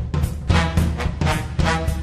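Upbeat theme music: a steady drum beat with brass coming in about half a second in.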